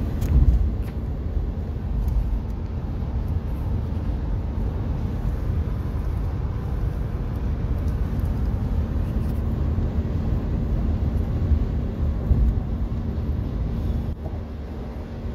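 Steady low road and engine rumble heard inside a moving car's cabin at highway speed. A faint steady hum comes in about halfway through, and there are a couple of brief louder bumps.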